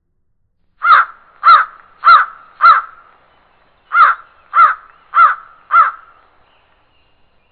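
Crow cawing loudly: two series of four harsh caws, evenly paced with a short pause between the series.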